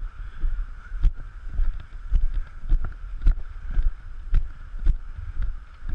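Footsteps of the person carrying the camera, walking on grass at about two steps a second, each footfall a dull thump, over a low rumble of wind on the microphone.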